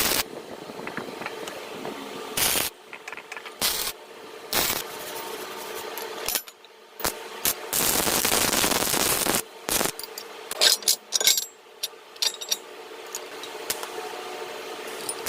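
Scattered sharp metal clinks and knocks over a faint steady hum, and a loud hissing burst of about a second and a half midway, typical of a short MIG weld.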